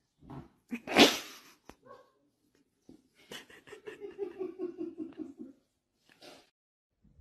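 Puppy vocal sounds: a sharp, sneeze-like snort about a second in, then a couple of seconds of quick, pitched, pulsing noises, about five a second, and a short puff near the end.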